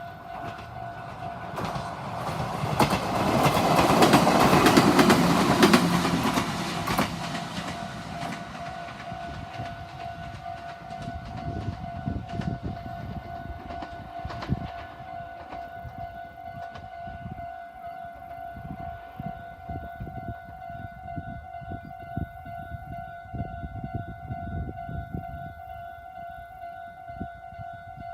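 A Meitetsu train passes through a third-class level crossing, building from about two seconds in, loudest around five seconds and fading by about eight. The crossing's electronic warning alarm rings steadily throughout, over an irregular low rumble.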